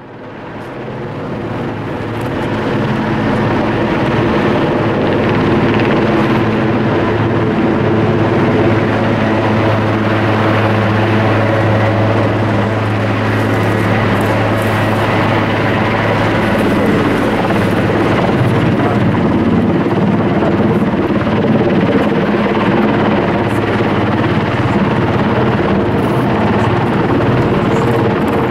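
Eurocopter Puma twin-turbine helicopter flying overhead with a slung load, its rotor beating and turbines running steadily. The sound fades in over the first few seconds, then holds loud and even.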